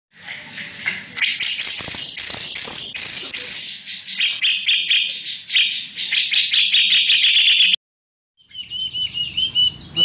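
Many caged songbirds singing at once, a dense high chirping and trilling that cuts off abruptly just before 8 s. After a short silence, a single white-rumped shama (murai batu) repeats a short hooked whistle over and over.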